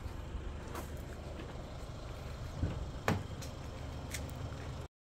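Steady low background rumble with a few short clicks and knocks, the loudest about three seconds in; the sound cuts off abruptly near the end.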